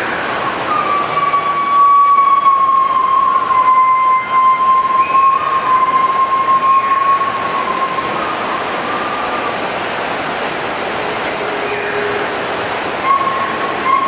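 Rainforest ambience: a steady, dense hiss with a long, high whistling tone held for several seconds, wavering slightly in pitch. It fades about two-thirds of the way through and returns briefly near the end.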